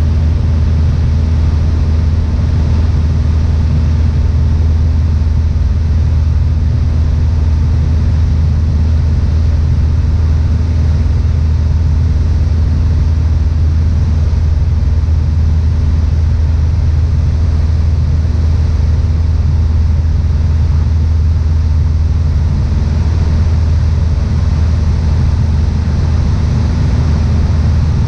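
Piper PA-28-161 Warrior II's four-cylinder Lycoming engine and propeller droning steadily in cruise, heard from inside the cabin over a constant rush of noise.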